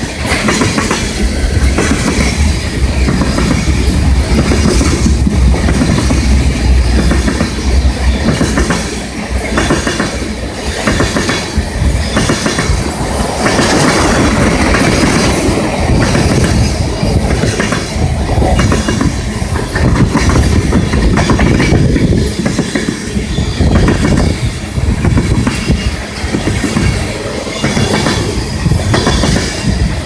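Freight train's tank cars rolling past close by: a steady loud rumble with the wheels clickety-clacking over the rail joints.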